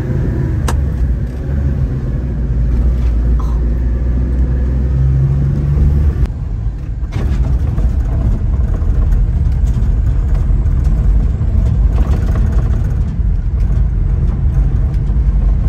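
Kei mini truck's small engine running while driving, heard from inside the cab, with tyre noise on gravel. A sharp click comes just under a second in; the engine note rises, then drops off briefly about six seconds in before carrying on, as with a gear change on its manual gearbox.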